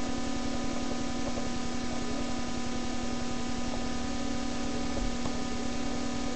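Steady electrical hum with several held tones over a constant hiss.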